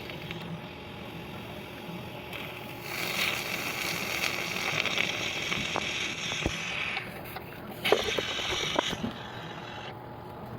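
Running car with its air-conditioning system working under the hood: a harsh hissing, rasping noise comes in about three seconds in and cuts off around seven seconds, then returns briefly about a second later, over a steady mechanical hum with a few clicks. This is the abnormal noise suspected of coming from the AC compressor in a car whose air conditioning cools poorly.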